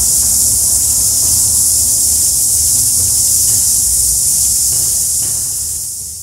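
Steady high-pitched insect chorus in the bush, with a low rumble underneath, fading out near the end.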